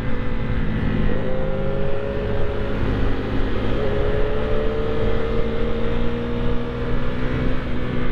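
Husqvarna Svartpilen 401's single-cylinder engine running under load. Its pitch dips briefly about a second in and again about four seconds in, then climbs slowly each time. Steady wind rush runs underneath.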